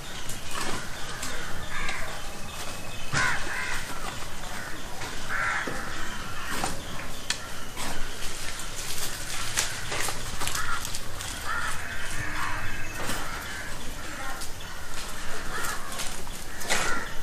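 Crows cawing again and again, short harsh calls a few seconds apart, with scattered clicks and rustles between them.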